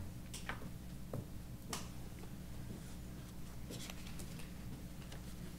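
Quiet room tone with a steady low hum and a few faint, scattered clicks and taps.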